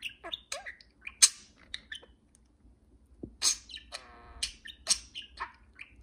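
Budgerigars chattering: a quick, uneven run of high chirps, clicks and warbles, with one short buzzy note a little past the middle.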